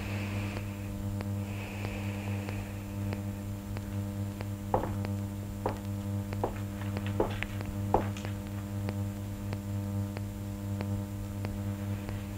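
Steady low electrical hum. In the middle, several sharp knocks come a little under a second apart.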